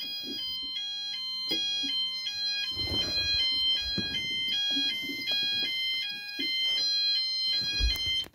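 Fire alarm sounder giving a two-tone alarm, high and low notes alternating quickly and evenly; the system is in alarm after a device was activated. The tone cuts off suddenly at the end, with a few bumps from handling the camera.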